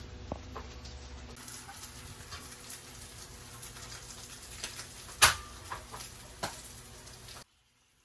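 Scattered light clicks and taps over a faint hiss, with one sharp click about five seconds in. The sound cuts off suddenly near the end.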